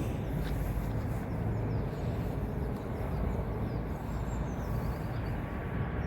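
Steady low outdoor rumble with faint, brief bird chirps high above it through the second half.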